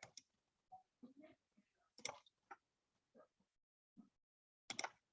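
Near silence with faint, scattered clicks and small taps, about a dozen, irregularly spaced.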